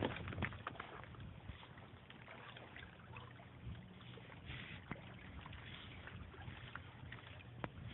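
Faint steady lakeside background noise with a few light clicks from the phone being handled.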